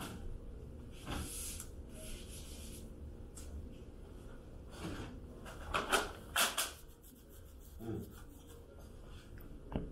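Dry-erase marker writing on a whiteboard: a series of short scratchy strokes, the loudest a little past the middle.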